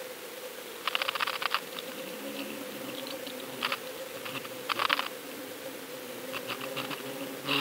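Underwater sound picked up inside a deep-drop camera housing on the fishing line: a steady hum with several short bursts of rapid clicking. The loudest bursts come about a second in and about five seconds in.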